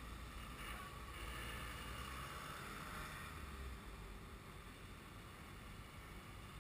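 Faint traffic passing on a wet road: a steady tyre hiss over a low rumble, swelling for a few seconds about half a second in as a vehicle goes by.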